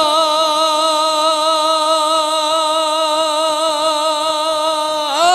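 A naat reciter's voice holding one long sung note through a microphone, steady with a slight waver, then gliding up to a new pitch near the end.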